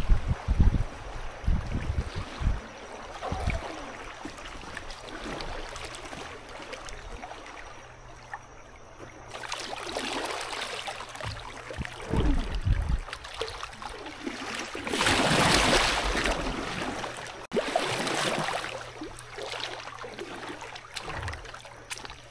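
Water trickling and splashing around a kayak on a river, with low bumps near the start and a louder rush of water noise about fifteen seconds in.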